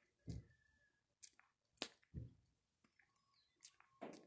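A Java macaque grooming a person's hair right by the microphone: about six sharp clicks and two duller soft thumps, spread irregularly over a few seconds of near quiet.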